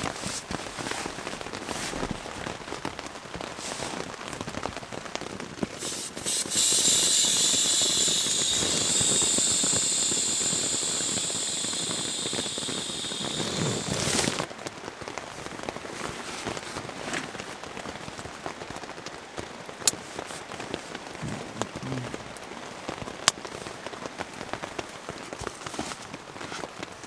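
Air hissing steadily out of an inflatable sleeping pad's open valve as it is let down, for about eight seconds, fading slowly and then cutting off suddenly. Around it, rain patters on the tent and nylon gear rustles, with two sharp clicks near the end.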